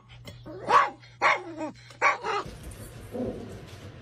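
Chihuahua barking three short times, about half a second apart, then a steady hiss for the rest.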